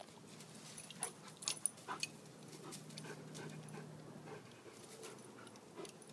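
German Shorthaired Pointer forcing its way into a leafy shrub: twigs and leaves rustling and crackling in sharp, irregular snaps, loudest between one and two seconds in, with the dog's breathing as it noses through. A faint low drone sits underneath and stops about four seconds in.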